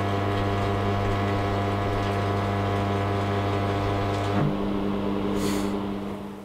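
A small AC arc welder run through a bridge rectifier holding a short arc: a steady, loud electric buzz with a crackle. About four seconds in the lowest part of the buzz drops out, and the sound fades away near the end as the arc goes out.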